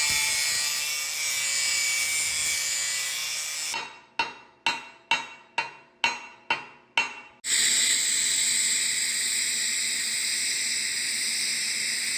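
TIG welding arc hissing steadily, broken in the middle by a run of about seven sharp knocks. The hiss starts again and carries a few steady high tones.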